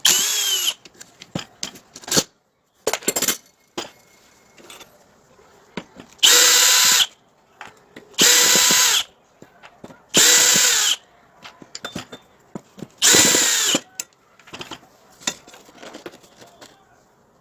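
Electric drill run in five short bursts of under a second each, its pitch rising as it spins up and falling as the trigger is released, with small clicks and knocks of handling in between.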